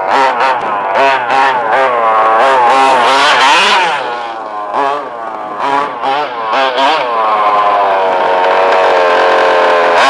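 Two-stroke petrol engine of a 1/5-scale HPI Baja 5B RC car, revved up and down in quick bursts of throttle, then held at a steady speed from about seven seconds in.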